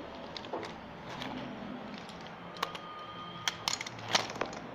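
Hot Wheels toy monster trucks being handled on a hard floor: scattered light clicks and taps of the die-cast and plastic toys knocking and being set down, most of them in the second half.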